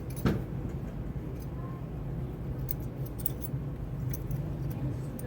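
Tools and small metal parts being handled during motorcycle brake work: one sharp knock just after the start, then scattered light metallic clicks over a steady low hum.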